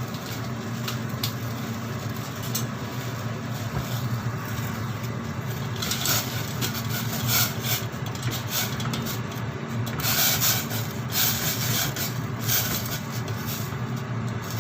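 Pot of noodles, dumplings and mushrooms heating on the stove and coming back toward the boil: a steady hum under a rough hiss, which grows louder and more uneven from about six seconds in.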